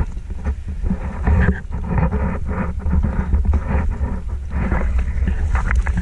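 Wind buffeting a GoPro's microphone: a heavy, continuous low rumble that surges unevenly.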